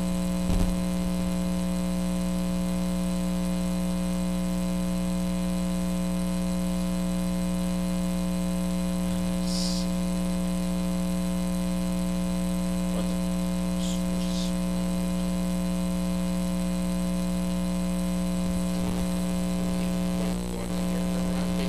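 Steady electrical mains hum with a buzzing stack of overtones, carried on the audio line, with a short thump about half a second in.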